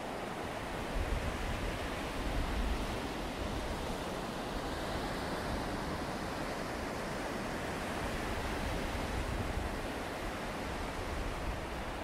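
Steady rushing outdoor noise of wind and sea surf along the shore, with low wind buffets on the microphone about a second in and again in the second half.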